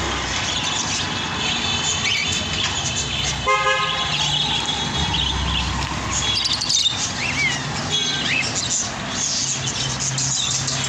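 Busy street ambience: traffic rumbling, with a short car-horn toot about three and a half seconds in and scattered high bird chirps.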